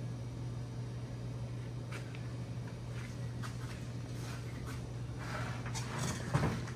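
Light clicks and knocks of metal transmission parts being handled on a steel workbench, coming more often and louder near the end, over a steady low hum.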